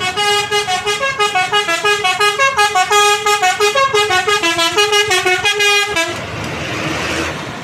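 Bus's telolet basuri musical air horn playing a quick melody of short notes that step up and down in pitch. It cuts off about six seconds in and gives way to a rushing noise.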